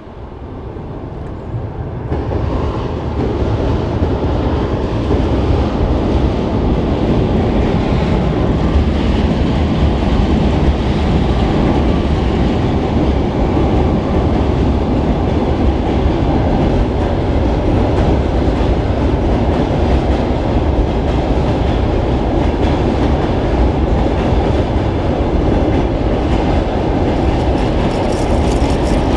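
A train crossing a steel truss railway bridge, heard from directly beneath it. The sound is loud and steady and builds up over the first two seconds.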